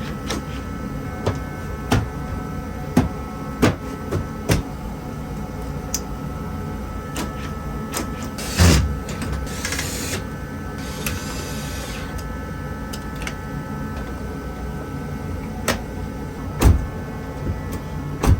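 Truck door hardware being handled: scattered sharp clicks and knocks, with heavier thumps about halfway through and near the end, over a steady hum.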